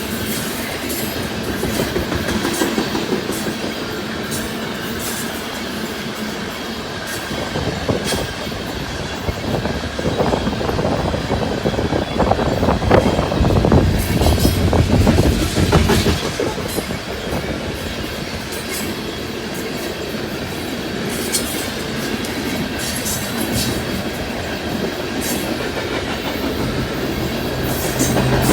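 Loaded coal hopper cars of a freight train rolling past, their wheels clicking over rail joints in a steady clickety-clack, with some wheel squeal. The passing grows louder for several seconds around the middle.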